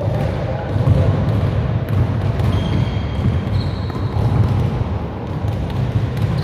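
Basketball being bounced on a hardwood gym floor, scattered knocks, over a steady low rumble.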